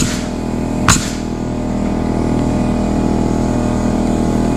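Pneumatic nail gun firing twice, about a second apart, driving nails into a wooden girt on a barn pole, over the steady sound of an engine running.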